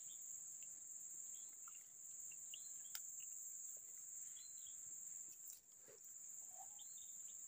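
Insects droning in a steady, high-pitched buzz, with a few faint chirps here and there.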